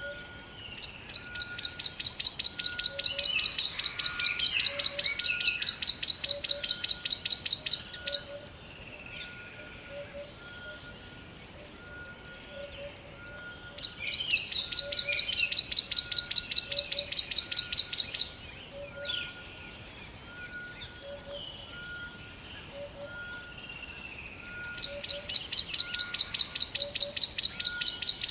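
Forest ambience of birds calling: scattered high chirps, and a loud, rapidly pulsing high trill that comes in three long bouts, the first about seven seconds long. Faint short notes repeat evenly underneath.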